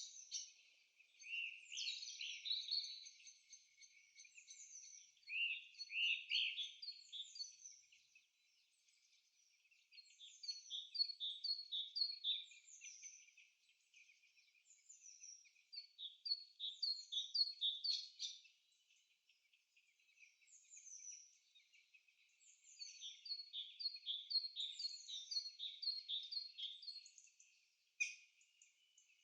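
Bird song: phrases made of a downward-slurring note and then a quick run of short chirps, repeated every few seconds with brief pauses in between.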